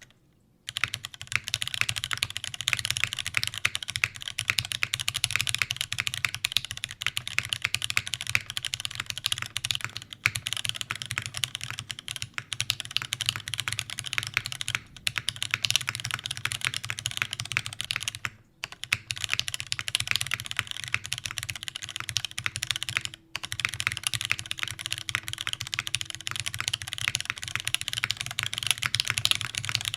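Fast, continuous typing on a custom mechanical keyboard with Cherry MX Black linear switches lubed with 205g0, TX 65 springs, a full aluminium plate and GMK keycaps: a dense stream of key clacks that starts about half a second in and pauses briefly a few times.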